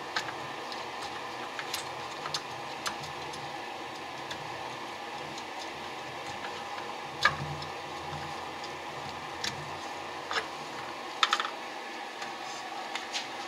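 Scattered small clicks and taps of metal parts being handled as a carburetor and its air box are fitted together by hand. There is a louder knock about seven seconds in and a quick rattle of clicks about eleven seconds in, over a steady background hum.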